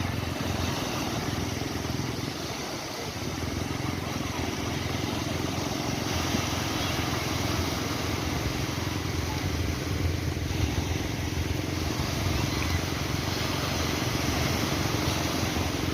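Steady rush of waves over a continuous low motor-like hum.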